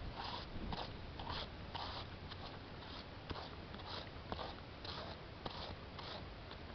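Crioulo horse cantering on loose sand: soft, rhythmic hoof and breathing sounds repeating about twice a second, fading near the end.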